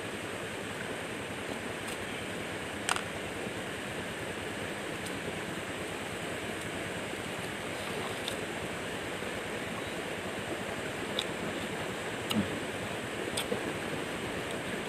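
Steady rush of flowing river water, with a few short sharp clicks from a knife cutting through a cucumber.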